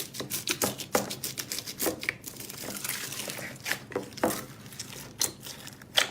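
Slime being squeezed and poked by hand, giving a run of sharp sticky clicks and pops, with a softer crinkling stretch in the middle.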